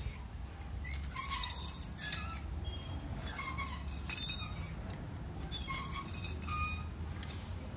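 Metal chains of a playground swing clinking and squeaking at their hooks as it swings, a short clink and squeak about every second, over a steady low rumble.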